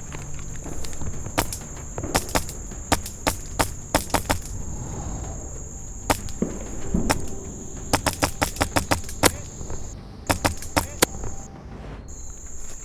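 HPA-powered Wolverine MTW airsoft rifle firing semi-automatic shots: sharp clicks singly and in short strings, with a quicker run of about ten shots in the last third. Crickets chirr steadily beneath.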